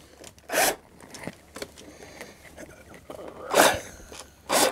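Cordless drill driving a screw into a wooden support in two short bursts, a light one about half a second in and a louder one about three and a half seconds in.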